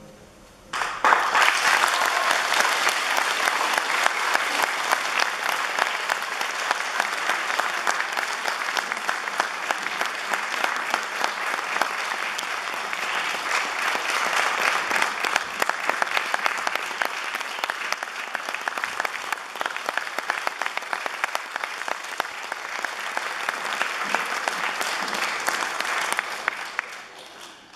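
Concert audience applauding at the close of a solo piano performance: many hands clapping together, breaking out suddenly about a second in, holding steady and dying away near the end.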